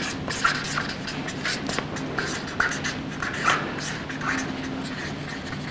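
Marker pen writing on flip-chart paper: a quick series of short strokes, several a second, as letters are written.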